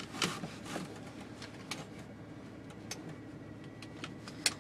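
1989 Ford F-350 truck engine running steadily, heard from inside the cab, with scattered light clicks and knocks and a sharper knock near the end.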